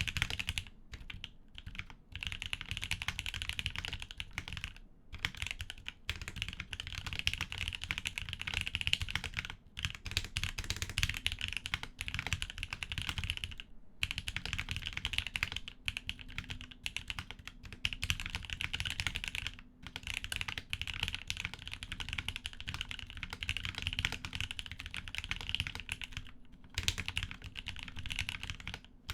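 Typing on a foamless Maker Alexa gasket-mount mechanical keyboard with a POM plate, lubed Gateron Milky Yellow Pro KS-3 linear switches and Drop DCX keycaps: a fast, steady run of keystrokes broken by short pauses every few seconds.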